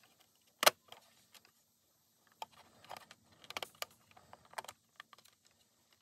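Small plastic clicks and knocks from handling a toy school bus and working its hinged rear door open. The sharpest click comes about a second in, with a quick cluster of clicks around the middle.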